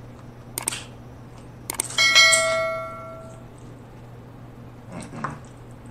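A bright bell chime rings about two seconds in and fades away over a second and a half: the notification-bell sound effect of a subscribe-button animation. Sharp clicks come just before it, and soft chewing sounds come near the end.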